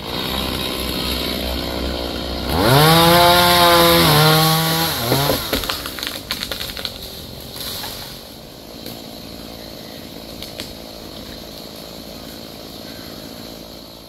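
Stihl chainsaw idling, then revved up sharply to full speed about two and a half seconds in, dipping once and dropping back about five seconds in as it cuts through a mahogany limb. A run of sharp cracks follows as the cut limb breaks away, and the saw then runs on more quietly.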